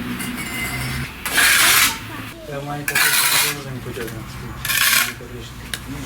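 Three short, harsh scrapes of a steel trowel working brick mortar, about a second and a half apart.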